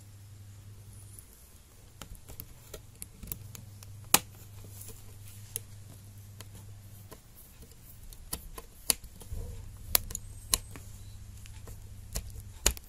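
Scattered small clicks and taps from a screwdriver and screws being handled while the screws are fitted around a laptop screen's hinge, the sharpest about four seconds in and several more near the end, over a faint low hum.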